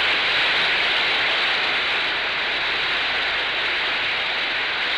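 Members of Congress applauding: a dense, steady wash of clapping on an old 1951 speech recording.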